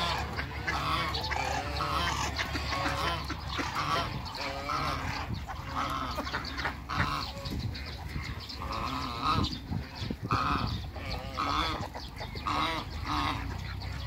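A mixed flock of domestic ducks and geese calling: honks and quacks repeat about once a second, often overlapping one another.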